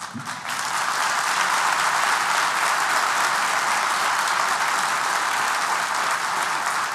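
Concert audience applauding, building up over the first second and then holding steady.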